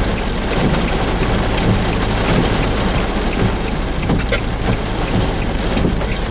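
Heavy rain pattering steadily, with a low steady hum, like a vehicle's idling engine, running beneath it.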